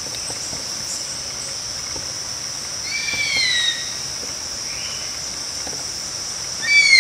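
Nature ambience: a steady high insect drone like crickets, with a bird giving two loud, falling whistled calls, about three seconds in and again near the end.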